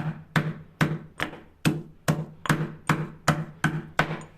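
Garlic and ginger being pounded with a pestle in a mortar: steady strikes about two and a half a second, each with a short ringing, stopping just before the end.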